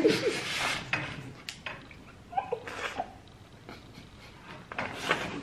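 Two women laughing in breathy, mostly voiceless bursts, with a few short pitched squeaks between them.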